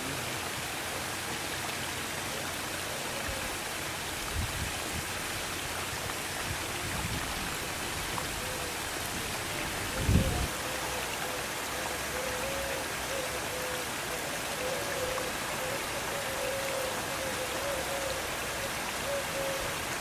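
A steady, even hiss, like rain or running water, with one short low thump about ten seconds in and a faint wavering tone in the second half.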